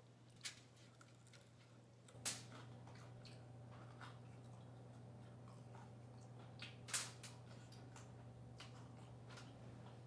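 Faint eating sounds from Hot Cheetos-crusted fried chicken being torn apart and bitten: a few short, sharp crunchy clicks, the loudest about two seconds in and about seven seconds in, over a low steady hum.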